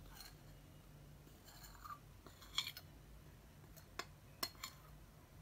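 Faint scraping of a metal spoon across a ceramic plate as powder is pushed off it, with a few light clicks of the spoon against the plate.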